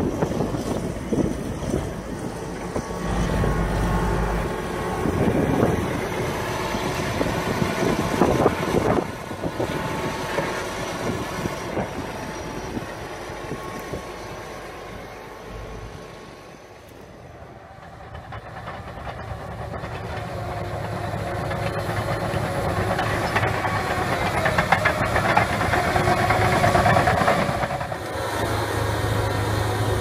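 Large crawler bulldozer's diesel engine running, with mechanical clatter. The sound dips in level a little past the middle and then builds up again.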